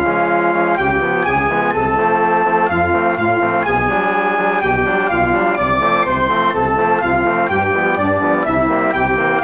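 Background music: an organ-like keyboard melody of held notes over a pulsing bass line.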